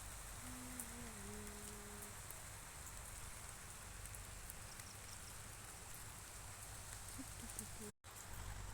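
Steady rain falling, an even hiss with no words; the sound drops out for a moment near the end.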